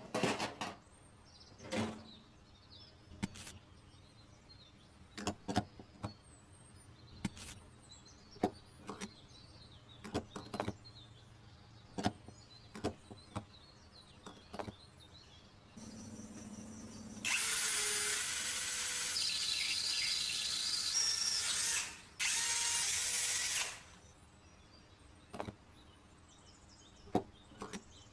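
Light taps and clicks of small pieces being handled, then a small motor whirring loudly for about five seconds, stopping briefly and running again for about two seconds.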